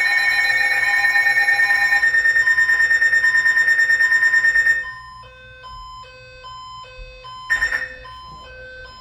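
Weather radio receiver alert alarms. A loud, rapidly pulsing high-pitched electronic alarm sounds for about five seconds and stops. It is followed by a quieter repeating pattern of short beeps at alternating pitches, with one brief louder chirp about two and a half seconds later.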